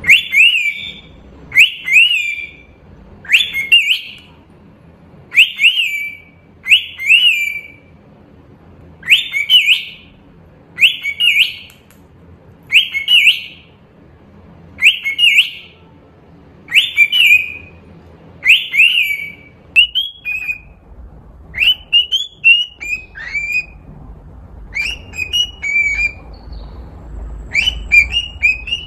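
Cockatiel whistling a clear note that rises then falls, repeated about every one and a half to two seconds; about twenty seconds in it changes to shorter, quicker notes in runs of two or three.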